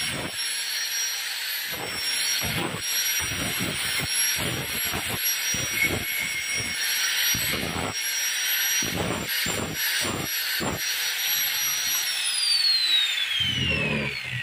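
Handheld angle grinder running at full speed with a steady high whine, its disc grinding along the edge of a steel plate in repeated passes to sharpen it. About twelve seconds in it is switched off and the whine falls in pitch as the disc spins down.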